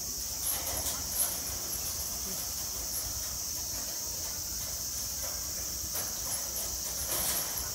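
Hanging wire-shelf swing on metal chains rattling and knocking as monkeys scuffle on it. There are a few short clatters about half a second to a second in and again near the end, over a steady high hiss.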